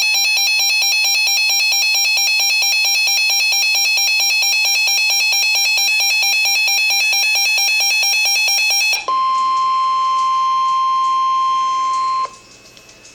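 Emergency Alert System attention signal: the harsh, buzzy two-tone alarm sounds steadily for about nine seconds, then switches to a single steady tone, the NOAA Weather Radio warning alarm, for about three seconds before cutting off abruptly.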